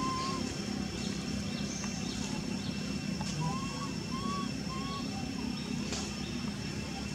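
Short chirping animal calls: one near the start, then three in quick succession about halfway through, over a steady low rumble.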